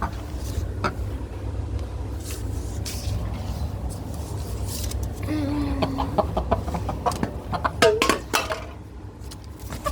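Chicken clucking: a short held call about five seconds in, then a quick run of clucks and clicks around eight seconds in, over a steady low rumble.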